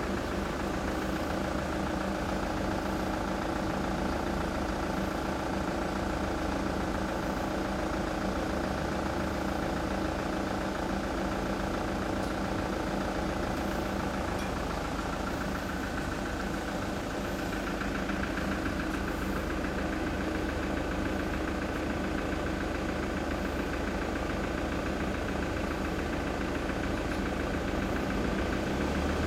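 1990 Yamaha SRX400's single-cylinder engine idling steadily, with a gruff exhaust note through its muffler.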